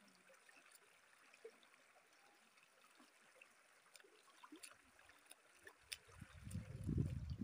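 Shallow river water trickling faintly over rocks, with a few small ticks and splashes. Near the end, a low rumble swells for about a second and is the loudest sound.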